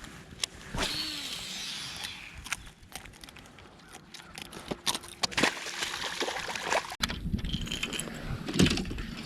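Scattered sharp clicks and light rattling, like fishing tackle being handled. From about seven seconds in, a low steady hum joins.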